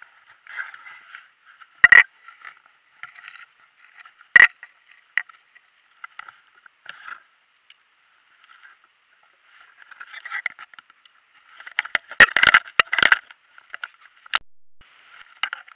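Knocks and scraping against a plastic kayak hull as a caught fish and a lure are handled inside it: a sharp knock about two seconds in, another a couple of seconds later, and a quick cluster of knocks near the end, over scratchy rustling.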